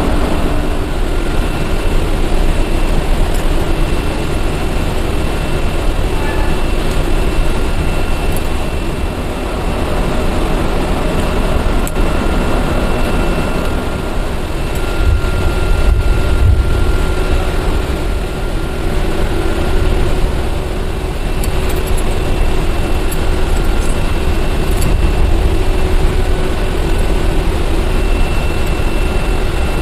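Steady low rumble of running machinery, engine-like, with faint high steady whines over it and only slight dips in level.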